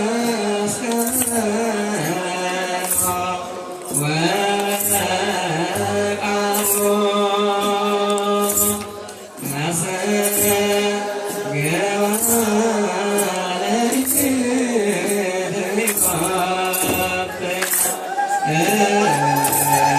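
Ethiopian Orthodox wereb chant: a group of voices singing a slow melody together in long, held phrases, with a short high rattling every second or two and repeated low beats underneath.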